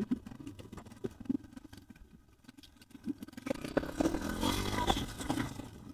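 Motorcycle being laid over onto its side on a gravel road: scraping and rattling that grow louder about three and a half seconds in, over the low sound of its engine running.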